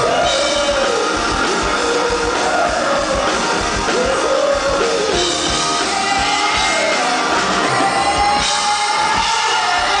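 Live rock band playing under a male lead vocalist singing into a handheld microphone. He holds long notes in the second half.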